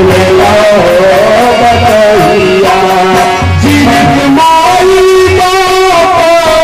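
Loud live music: an instrumental passage between the sung verses of a Hindi devotional song, a melody moving through long held notes over a low, repeated beat.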